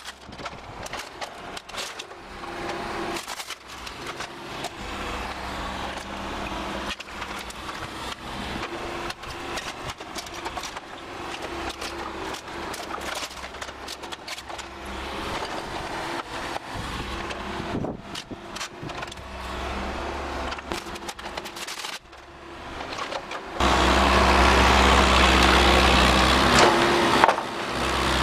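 Bobcat 331 compact excavator's diesel engine running under load while it pulls down a wood-framed house wall, with repeated cracks, knocks and clunks of breaking studs and boards. Near the end the engine gets much louder.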